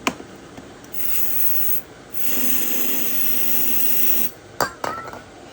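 Aerosol starter fluid sprayed in two bursts, a short one and then a longer steady hiss of about two seconds, to get a generator with a bad carburetor to fire; a couple of sharp clicks follow near the end.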